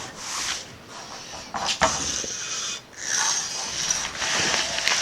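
Aerosol can of black spray paint hissing in short bursts, masking parts of a neon tube, with a knock about two seconds in.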